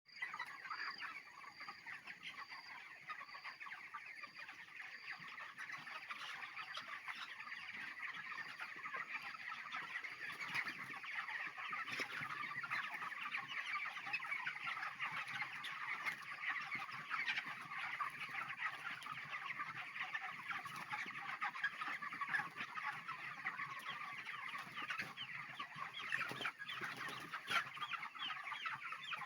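A large flock of four-week-old broiler chickens calling and clucking all at once, a dense, continuous chatter of many overlapping short calls.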